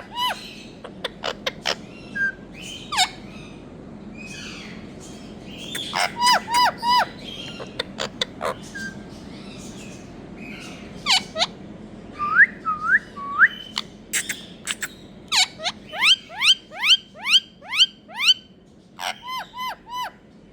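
Indian ringneck parakeet calling: short, sharp, piercing calls in quick runs of three to eight, with a few rising whistled notes about halfway through.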